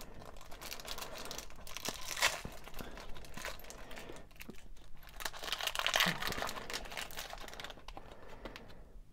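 Foil-lined booster pack wrapper crinkling and tearing as hands rip it open and pull out the contents, with louder bursts of crinkling about two seconds in and again around six seconds.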